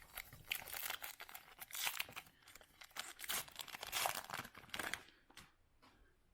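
Crinkly tearing and rustling of a foil baseball card pack wrapper being ripped open and handled, in a run of bursts for about five seconds, then it dies away.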